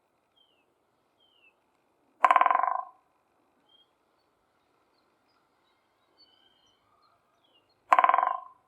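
Woodpecker drumming its beak on a dry branch: two short, fast rolls about five and a half seconds apart, each ringing and dying away as it goes.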